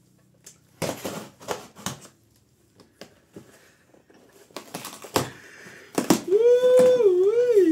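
Cardboard and plastic packaging being torn open and handled, in short crisp rustles and a couple of knocks. Near the end a high vocal note that holds, then wavers up and down, is the loudest sound.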